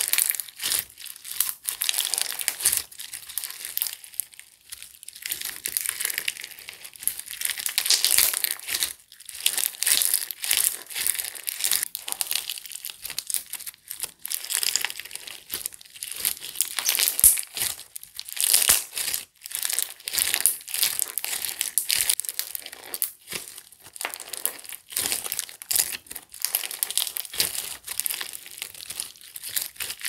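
Clear slime packed with small green bead-like balls being squeezed, folded and stretched by hand, giving a continuous run of wet crackles and tiny pops as the beads and air pockets squish together.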